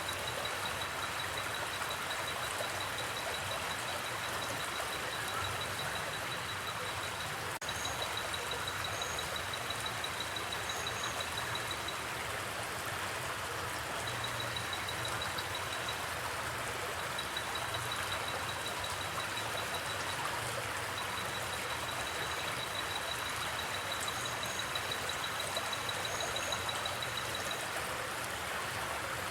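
Steady rushing of a river, with a cricket trilling in long runs of rapid pulses that stop and start, and a few short high chirps.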